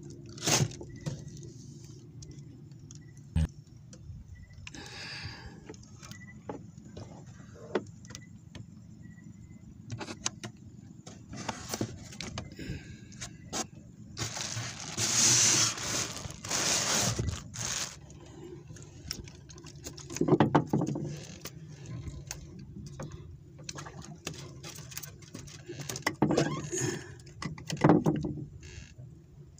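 Plastic bags rustling and a styrofoam cooler being handled, with scattered knocks and scrapes and several louder bursts of rustling, over a steady low hum.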